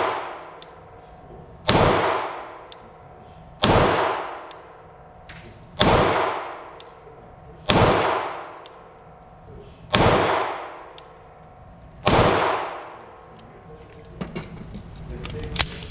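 Six single shots from a 9mm Glock 19 pistol with 115-grain FMJ ammunition, fired slowly about two seconds apart. Each shot rings off the concrete walls of an indoor range. Near the end come a few small handling clicks.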